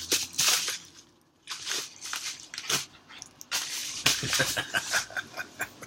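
A large mailing envelope being torn open and handled: irregular ripping and rustling of paper, with a short pause about a second in and a quicker run of rips around four seconds in.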